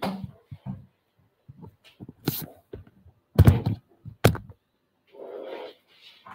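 Three knocks and thumps a second or so apart, the middle one the loudest, then a short rustle, as a person gets up and moves about next to the microphone.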